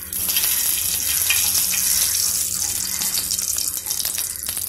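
A lump of ghee sizzling as it melts in a hot frying pan: a steady hiss with fine crackling.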